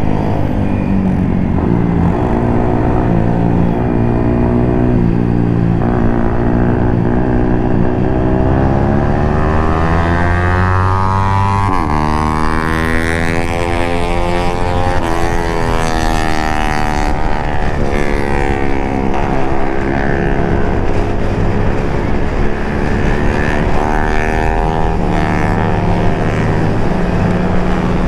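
Several Honda Click single-cylinder scooter engines running together on a racetrack, their pitches rising and falling and crossing as the scooters speed up, slow and pass one another over a steady engine drone.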